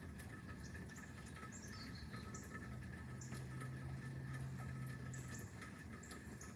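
Faint outdoor ambience of insects chirping: short high chirps, some falling in pitch, over a steady pulsing trill. A low hum of unclear source comes in for about three seconds in the middle.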